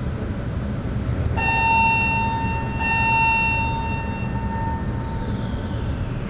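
Steady low rumble of distant city traffic. A distant pitched horn sounds twice, about a second and a half apart, and rings out over a couple of seconds. A faint tone falling in pitch follows near the end.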